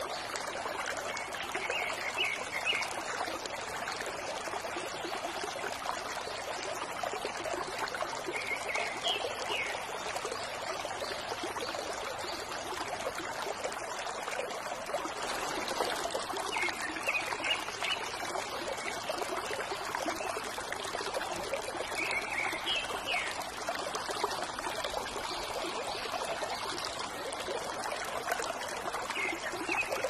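Water trickling and pouring steadily from a bamboo fountain spout, with a short high animal call about every six or seven seconds.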